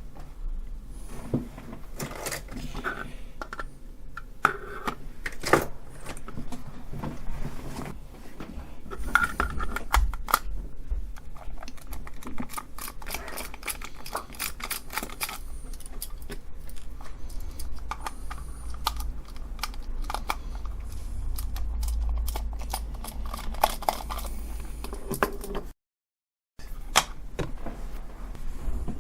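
Small irregular clicks, taps and scrapes as the plastic case of a cheap BT-168 battery tester is unscrewed with a small screwdriver and opened by hand.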